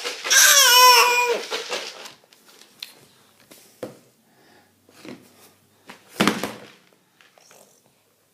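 A baby's high-pitched wordless vocalising: two drawn-out, wavering squeals in the first two seconds. These are followed by quieter small clicks and smacks, and a short noisy burst about six seconds in.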